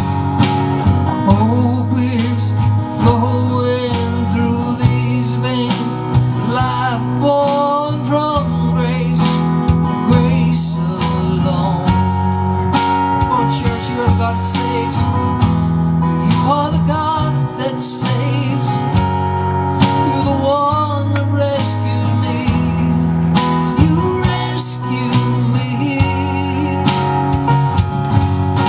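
Live acoustic guitar and electric guitar playing a song through a small PA, with a steady low bass line under a wavering melody.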